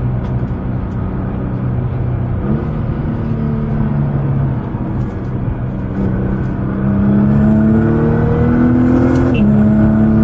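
Nissan GT-R's twin-turbo engine pulling under acceleration, its pitch climbing and growing louder, then dropping suddenly at a gear change near the end with a brief hiss.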